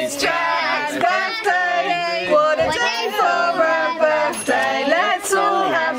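A song being sung, with high, child-like singing voices holding and changing notes over a low stepping accompaniment.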